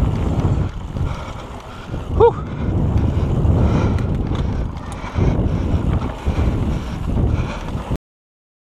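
Wind buffeting the microphone of a bike-mounted camera, over a low rumble from riding a dirt trail, with a brief tone about two seconds in. The sound cuts off suddenly near the end.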